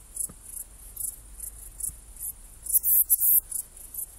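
Saddle-backed bush cricket (Ephippiger ephippiger) stridulating: short, very high-pitched chirps repeated several times a second, with louder chirps about three seconds in.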